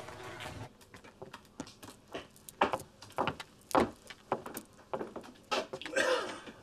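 Footsteps on a wooden shop floor: a series of firm, irregular steps and knocks as a man walks in and comes to a stop.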